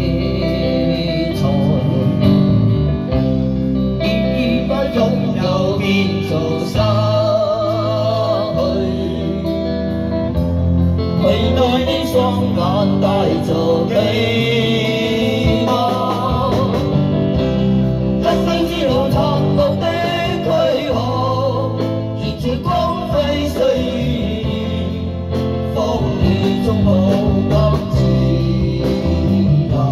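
A man singing into a microphone with a live band backing him on electric guitars and drums.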